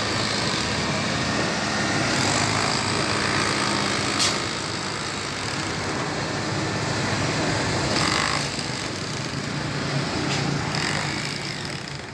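Small portable drum concrete mixer running, its drum turning and churning a load of wet concrete, with a few sharp knocks.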